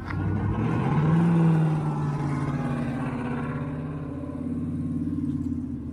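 A vehicle's motor running, its pitch rising in the first second or so and then holding fairly steady.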